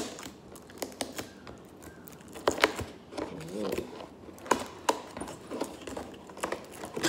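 Fingers picking and scratching at the flap and tape of a cardboard box, a string of sharp clicks and scrapes at irregular intervals. A short murmur of a voice comes about halfway through.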